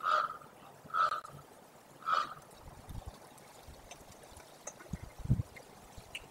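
Common raven calling three times, short harsh calls about a second apart, followed by a few soft low thumps.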